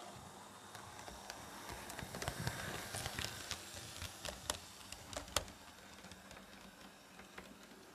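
Model diesel locomotive running along the layout track: a faint motor hum with a quick, irregular run of clicks from its wheels over rail joints and pointwork, loudest as it passes close by in the middle and easing off after that.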